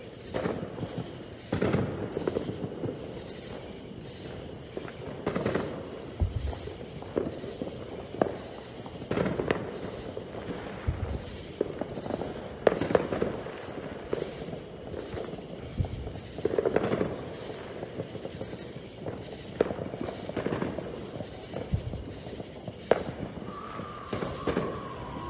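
Distant Fourth of July fireworks going off: irregular pops, bangs and crackling, a few deep booms, and a long, slowly falling whistle near the end.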